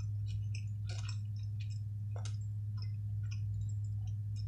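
Eating sounds: chewing and soft mouth noises with scattered small clicks of a plastic fork picking through food on a plate, over a steady low hum.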